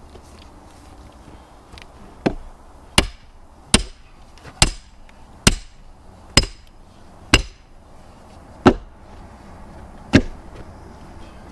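Axe chopping at a round of firewood: nine sharp blows, roughly a second apart, starting about two seconds in.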